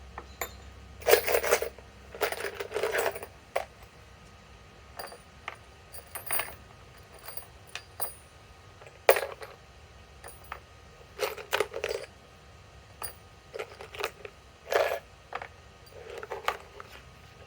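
Metal screws clinking and rattling as they are handled, in a dozen or so irregular short clatters with a bright metallic ring.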